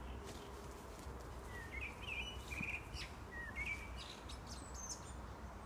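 Common blackbird singing one song phrase: a low fluty warble about a couple of seconds in, ending in a high, thin, squeaky twitter. A steady low rumble runs in the background.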